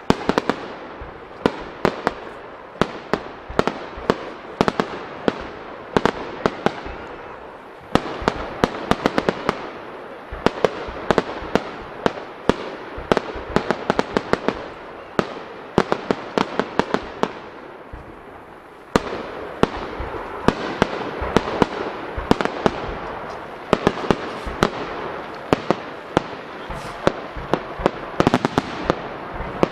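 Starmine fireworks barrage: aerial shells bursting in rapid succession, sharp bangs over a continuous crackling haze. The barrage eases off and then surges again with fresh volleys about 8 and 19 seconds in.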